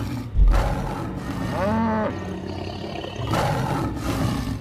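Cartoon tiger roaring, with a heavy low thump about half a second in.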